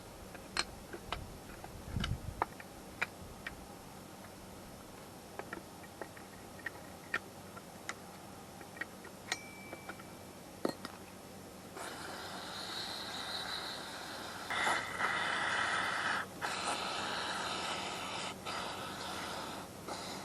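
Scattered light clicks and taps of hand tools and small metal parts on a chainsaw. Then, from about twelve seconds in, an aerosol can of brake cleaner hisses in long spurts, louder from about fourteen seconds, with brief breaks between sprays.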